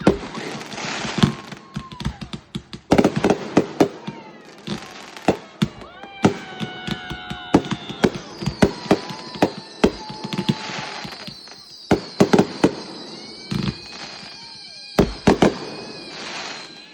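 Fireworks going off: many sharp bangs and crackling pops at irregular intervals, mixed with high whistling tones. One long, slowly falling whistle runs through the second half.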